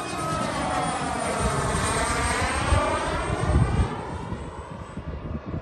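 Twin-turbine quarter-scale Yak-130 model jet making a close pass: the jet noise swells, is loudest a little past the middle, then falls away, with the sweeping, phasing whoosh of a flyby.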